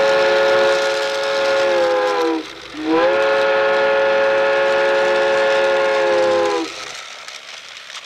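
Steam train whistle sounding two long blasts, the first about two seconds and the second nearly four, each dropping in pitch as it dies away, with a hiss beneath.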